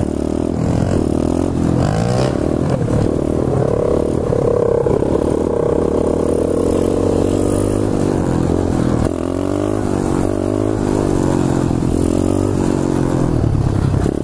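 2015 SSR 125cc pit bike's single-cylinder four-stroke engine running hard through a wheelie, its revs rising and falling as the throttle is worked.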